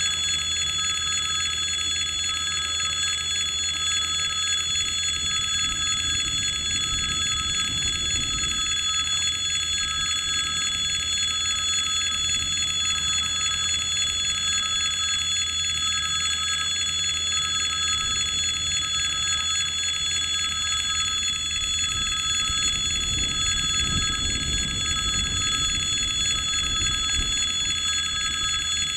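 Railway level-crossing warning bell ringing continuously at a steady pitch. A low rumble swells under it twice, about a quarter of the way in and again near the end.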